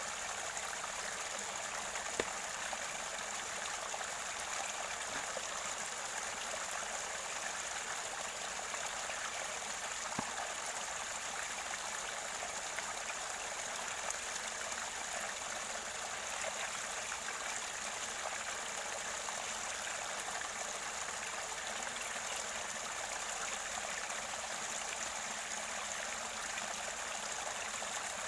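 Mountain river water gurgling and rushing steadily near its spring source, with a couple of faint clicks in the water sound.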